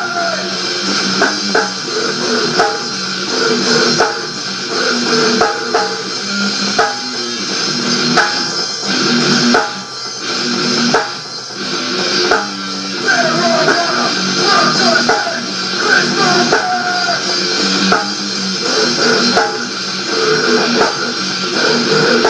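Rock band playing a song: guitar over a steady drum kit beat, with a thin, narrow-range sound.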